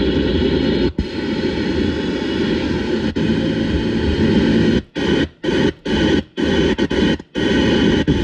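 Car radio in a 1985 Oldsmobile Cutlass 442 playing loud static through its speakers, cutting out briefly several times in the second half; the radio works.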